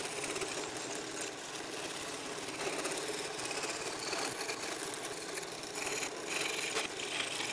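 Craftsman scroll saw running steadily with a No. 3 reverse-tooth blade cutting through 3/4-inch cherry as the workpiece is fed around the tight corners of the initials.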